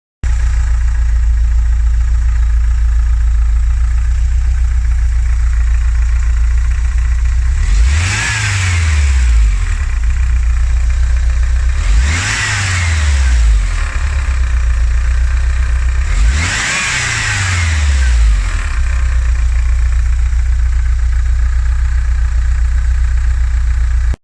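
VW T3's water-cooled flat-four Wasserboxer engine (DH) idling with a clacking, knocking rattle, revved briefly three times, about 8, 12 and 16 seconds in, each rev rising and falling back to idle.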